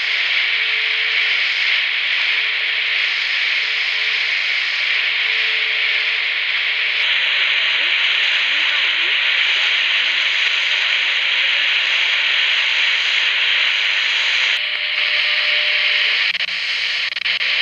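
Shortwave reception of the WWV time station on 5 MHz on a modified Digitech AR1758 receiver's tiny speaker: loud, steady static hiss. A faint steady tone sits under the hiss for the first several seconds, and a slightly higher tone comes in near the end.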